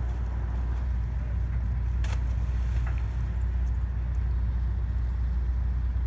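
Steady low rumble of a tugboat's diesel engine running, with a brief knock about two seconds in.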